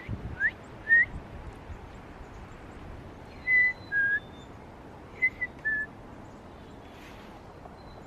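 A person whistling to call wild birds to a seed-filled hand: three short quick whistles, the middle one sliding up, in the first second, then two falling two-note whistles, high then lower, around the middle.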